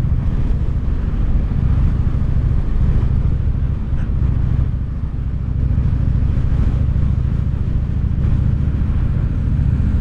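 Cruiser motorcycle's V-twin engine running steadily at cruising speed, with wind rush over the on-bike microphone.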